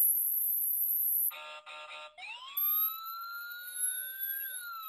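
Recorded siren played through the audible speaker of a Garden Secrets GS-501 solar animal repeller. A short stuttering tone about a second in gives way to a wail that rises, holds, and starts falling near the end. Over it is a steady, very high-pitched whine from the repeller's ultrasonic speaker, which breaks off about a second in and returns about half-way through.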